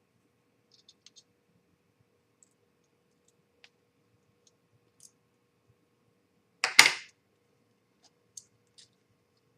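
Small model parts and tools being handled on a work surface: scattered faint clicks, and one loud sharp double clack a little before seven seconds in.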